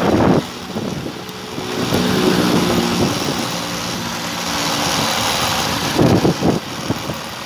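A motor vehicle engine running steadily, over road and wind noise, with brief louder gusts near the start and about six seconds in.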